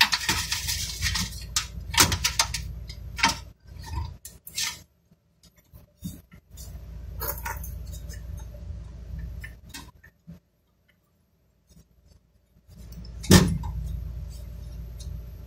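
Metal clinks and rattles of a screwdriver and screws against a steel computer case and motherboard as the motherboard is screwed in, thickest in the first few seconds, with one sharp clink near the end.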